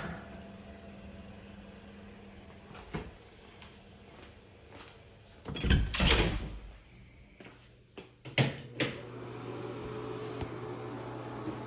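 A door being moved and shut: a loud swish lasting about a second near the middle, then a few sharp clicks. A low steady hum comes on with the clicks.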